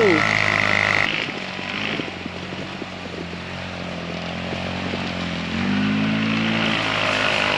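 Small side-by-side engine running as the tracked machine drives through snow. The engine drone drops off about a second in and picks up again with a higher hum near the end.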